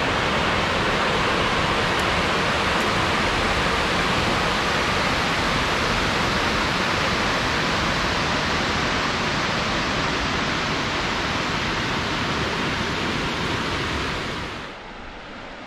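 River water rushing hard below a dam, a steady loud rush that drops off sharply near the end.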